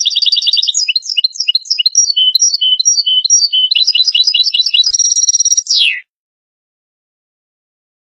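European goldfinch singing: a fast twittering run of high trills and short notes that ends in a buzzy trill and a falling note, stopping abruptly about six seconds in.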